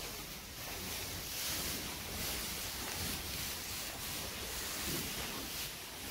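Steady hiss of background noise in a cattle barn, with no distinct event standing out.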